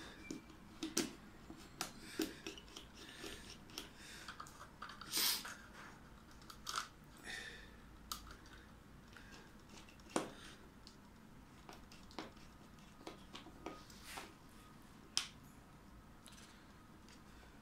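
Small irregular clicks, ticks and scrapes of a screwdriver working the terminal screws of a modular circuit breaker while stiff wires are pushed in and handled, with a few sharper knocks and a longer scrape about five seconds in.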